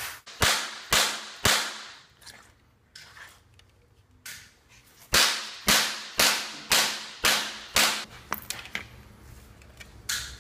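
Dead blow hammer striking a wooden form block laid on a dented Sherman trap top panel, pounding the creases out. Three blows about half a second apart, a pause with a couple of lighter knocks, then six more blows at the same pace, each a sharp knock.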